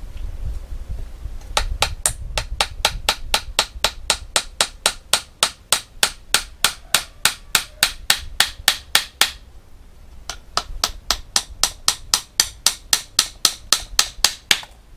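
Hammer driving nails into a wooden strip of a mosquito-net frame, in quick even taps of about five a second. The taps come in two runs, with a pause of about a second near the middle.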